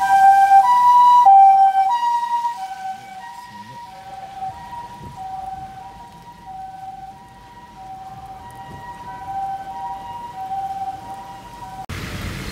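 Japanese ambulance siren sounding its two-tone hi-lo 'pee-po' call, two steady notes alternating about every two-thirds of a second. Loud for the first couple of seconds, then clearly quieter as it carries on, and it cuts off sharply near the end.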